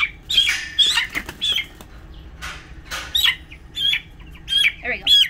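Broiler chick chirping loudly and repeatedly in short, high peeps that fall in pitch, upset at being caught and held. Wing flapping and rustling as it is grabbed about half a second in.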